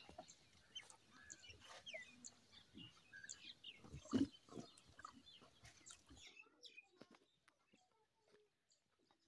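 Faint chirping of small birds with scattered small clicks and knocks, and one louder low knock about four seconds in; the chirping thins out after about six seconds.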